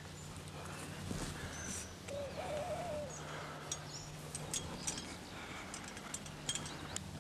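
Countryside ambience: small birds chirping in short high notes, with one wavering call about two seconds in, over a steady low hum.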